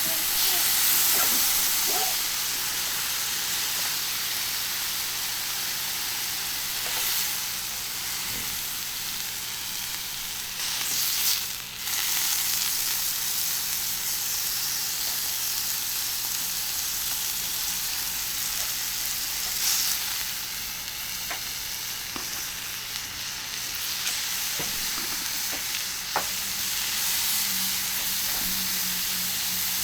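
Beef tongue and skirt steak sizzling on a hot iron griddle: a steady, high frying hiss, with a couple of brief clicks.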